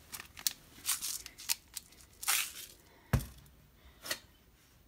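Spice grinder twisted in short, irregular crunching bursts as salt and pepper are ground onto raw pork ribs, with a single knock about three seconds in.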